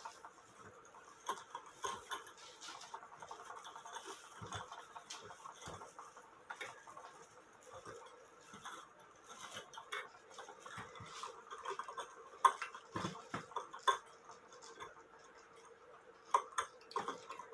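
Light metallic clicks, taps and clinks at irregular intervals as a cuckoo clock movement and its metal stand are handled and adjusted, with a few sharper knocks near the middle. A faint steady hum runs underneath.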